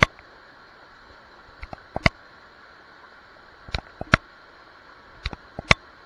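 Steady rush of a small waterfall spilling into a rocky river pool. Over it come loud sharp clicks in small clusters about every two seconds.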